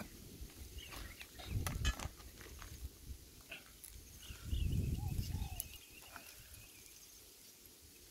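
Puppies giving short, faint squeaks and whimpers through the first half, with two bursts of low rumble, about one and a half seconds in and again near five seconds, as the loudest sounds.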